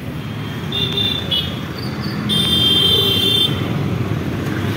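Busy city street traffic: scooter and auto-rickshaw engines running, with a brief vehicle horn about a second in and a louder, longer horn about two and a half seconds in.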